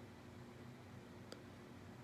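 Near silence: room tone with a faint steady hum and one tiny click just over a second in.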